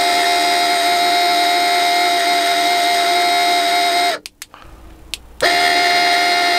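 Camper ceiling exhaust fan motor running with its propeller removed, giving a loud, steady, high whine, the scream-like noise of the fan. It cuts out about four seconds in and starts again just over a second later. The noise comes from the motor itself, which the owner decides must be replaced.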